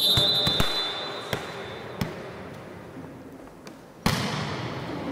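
A referee's whistle trailing off in the first half second, then a volleyball thumping on the gym floor four times at uneven intervals over the next two seconds. A louder hit about four seconds in echoes through the hall.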